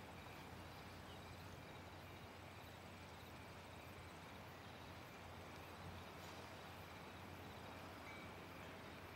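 Near silence: faint night-time outdoor ambience, a steady low hum and hiss with crickets chirping faintly.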